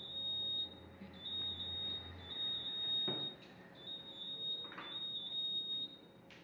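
An electronic beeper sounding a high steady tone over and over, about one beep a second, each lasting most of a second, stopping near the end. A couple of soft knocks mixed in.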